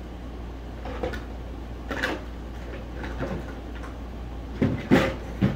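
Plastic toy play kitchen being handled: its small doors and pieces opened, shut and knocked in a scattered series of light knocks and clatters, the loudest cluster near the end.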